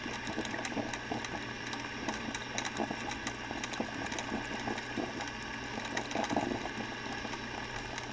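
Electric drip coffee maker brewing, with a steady sputtering run of rapid, irregular clicks and crackles over a low steady hum.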